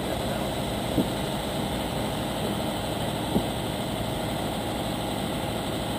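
Fire engine idling: a steady engine rumble, with two brief sharp sounds, about a second in and a little past three seconds.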